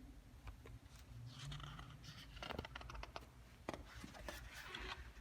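Faint paper rustling with a few small clicks as the pages of a picture book are handled and turned.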